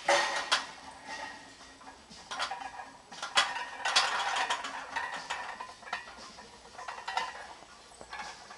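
Iron weight plates clanking and rattling on a barbell loaded with 315 lb during a back squat, with sharp clanks at the start and again around three and a half to four seconds in.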